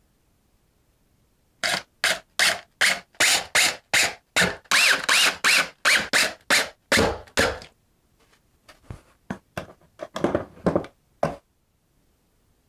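Power drill driving screws to fix wall brackets, the trigger pulsed in short bursts about two or three a second, the motor whine rising and falling within some of them. A quieter run of shorter bursts follows near the end.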